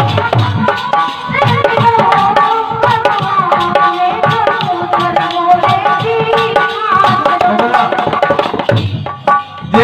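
Instrumental break of an Indian folk song: a hand drum plays a fast, steady rhythm under a wavering melody line.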